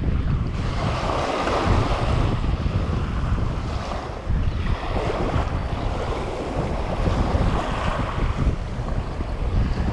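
Small waves washing onto a sandy shore in surges every couple of seconds, with wind buffeting the microphone in a steady low rumble.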